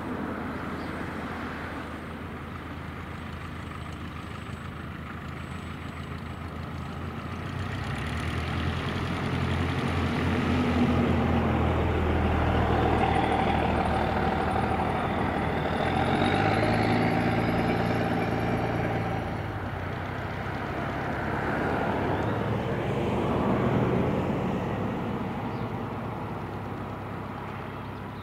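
A 1947 Cessna 140's small flat-four piston engine and propeller running at low taxi power as the taildragger rolls along the runway. It swells louder through the middle as the plane passes close and eases off near the end.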